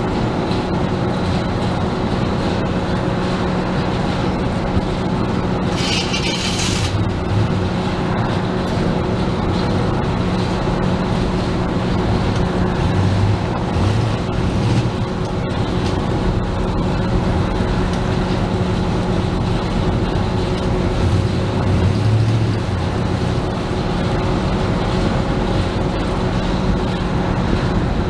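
Chevrolet S10 pickup on the move: its engine running steadily under road and tyre noise, with a constant low hum. A brief hiss rises over it about six seconds in.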